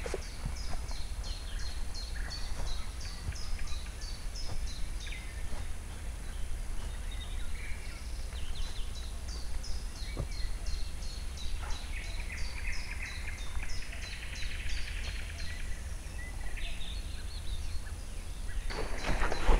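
A small songbird calling a long run of short high notes, about three a second, over a steady low rumble. Near the end, footsteps pushing through grass start up.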